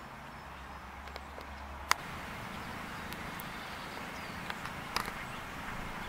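Outdoor background noise with no clear call, and one sharp click about two seconds in, after which the hiss is a little louder; a few fainter ticks come near the end.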